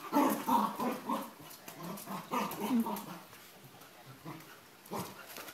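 Cocker spaniel whimpering in short whines that rise and fall, loudest over the first three seconds and fainter after.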